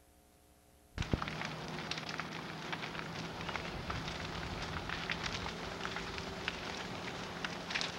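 Large pile of burning timber crackling and popping, the sound starting abruptly about a second in.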